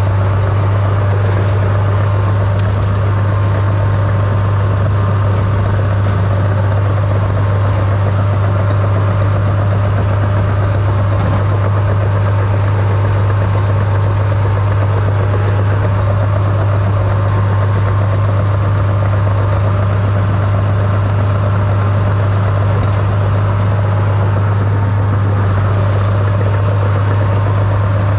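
Small crawler dozer's diesel engine running steadily at a constant speed with a loud, even low hum, heard up close from the operator's seat as the machine moves through snow.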